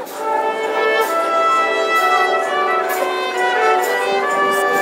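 Military brass band playing a slow melody of long held notes, swelling in loudness right at the start.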